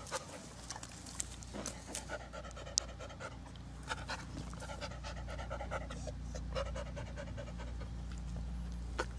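A dog panting close to the microphone, in quick, uneven breaths.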